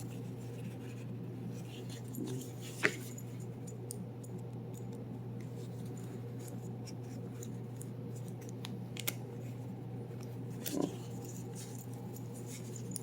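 Steady low hum with a few faint clicks and rustles of fabric cable sleeves being handled; the sharpest click comes about three seconds in.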